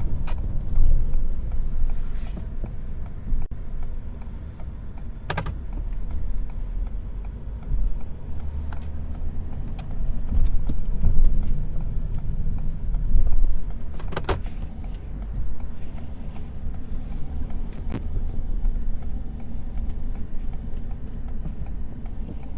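Snow-plow pickup truck's engine working, heard from inside the cab, a heavy low rumble that swells and fades as the truck pushes snow. A few sharp clacks cut through it, the clearest about five and fourteen seconds in.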